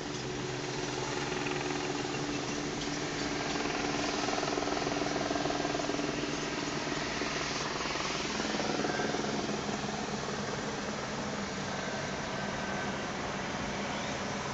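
Car engine and road noise heard from inside the cabin, a steady hum whose pitch shifts about eight seconds in.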